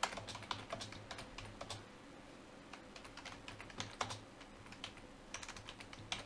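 Typing on a computer keyboard: irregular key clicks in short runs, with a lull of about a second and a half near the middle.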